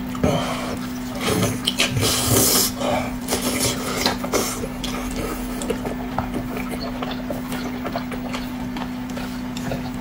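A person chewing and eating braised pork: wet mouth sounds and short clicks and smacks, with light utensil clinks. A steady low hum runs underneath.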